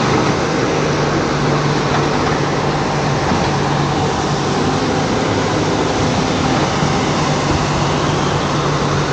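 An engine running steadily at a constant low pitch, under a steady hiss.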